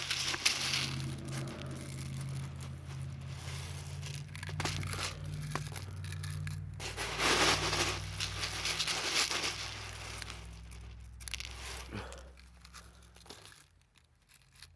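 Crinkling, rustling and scraping handling noises while an airsoft grenade is being filled, with the loudest burst in the middle, over a low steady hum that fades out near the end.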